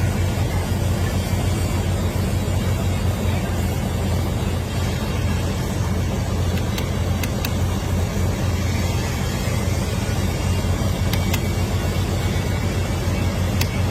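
A steady, even machine hum with a few faint ticks.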